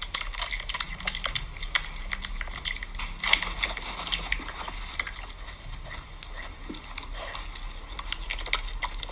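Irregular light clicking and tapping, a few sharp clicks a second, over a faint steady low hum.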